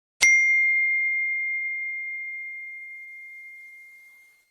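iPhone notification chime: a single ding struck once, ringing on one clear high tone that fades away over about four seconds.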